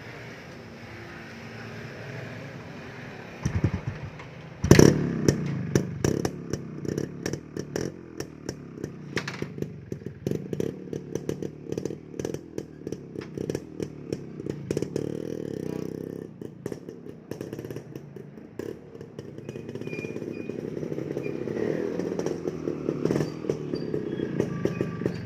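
Kawasaki HD3 125 cc single-cylinder motorcycle engine, briefly cranked about three and a half seconds in and catching about a second later. It then runs with uneven, spiky loudness from throttle blips, growing louder near the end.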